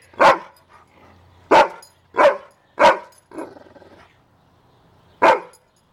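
A large dog barking: single sharp barks with pauses between, five loud ones and a weaker one, with the longest gap before the last bark.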